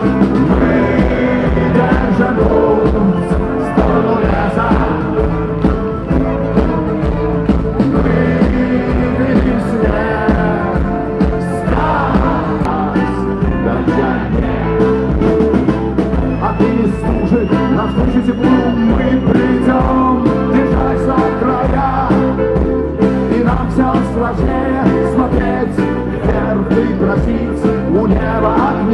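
Live acoustic rock band playing, led by a strummed twelve-string acoustic guitar over a steady beat, with a man singing.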